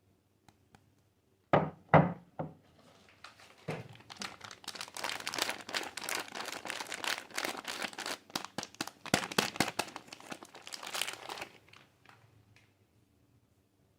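A few soft thunks as a packaged soap bar is handled and set down, then about eight seconds of crinkling and crackling as its wrapper is unwrapped.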